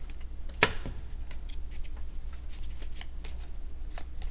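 Small Clue game cards being shuffled by hand: a run of light, quick card clicks, with one sharper snap about two-thirds of a second in.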